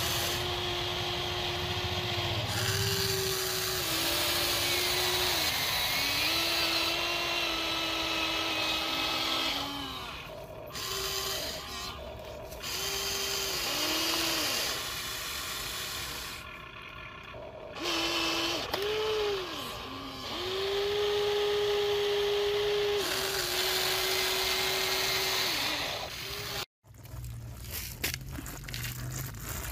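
Electric motors of a Huina radio-controlled toy excavator whining as the boom, arm and bucket move, the pitch stepping up and down with each movement and pausing briefly between them. Near the end the whine cuts off abruptly and gives way to a brief clatter.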